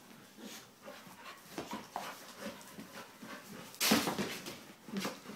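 Two dogs play-wrestling: a string of short, breathy dog sounds and scuffling, with one louder burst about four seconds in.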